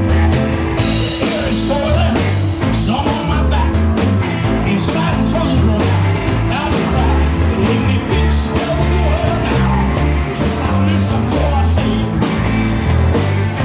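Live rock band playing: electric guitars, bass guitar and drums, with a man singing.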